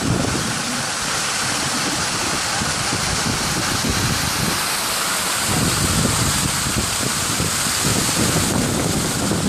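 Small waterfall pouring over a rock ledge and splashing into a pool below, a steady rushing hiss. Wind buffets the microphone in low gusts, stronger from about halfway through.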